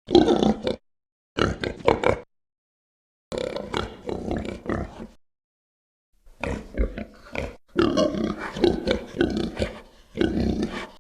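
Gamorrean guard creature vocalizations: a run of about six short, guttural, pig-like grunting calls, played as separate clips with brief dead-silent gaps between some of them.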